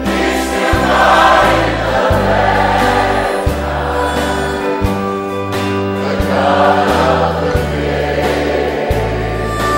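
Background music: a choir singing a slow religious song over sustained bass notes that change about once a second.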